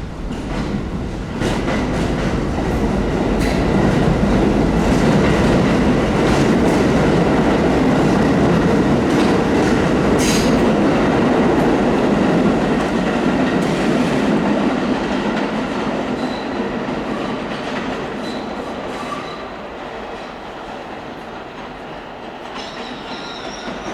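Subway train running past on the tracks, its wheels clicking over rail joints, loudest in the middle and then fading. Thin wheel squeals come in near the end.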